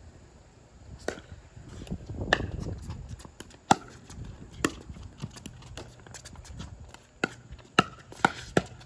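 Pickleball rally: sharp pops of paddles hitting the hard plastic ball, mixed with the ball's bounces on the court. There are about eight at uneven intervals, coming faster near the end.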